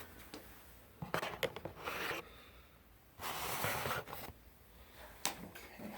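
Rustling and scraping handling noises: a few short scratchy bursts, the longest about three seconds in, with small sharp clicks between them.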